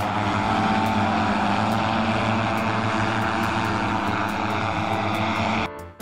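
Airbus CityAirbus electric multirotor air taxi in flight: a steady, dense whirring hum of its electric rotors, which cuts off suddenly near the end as music comes in.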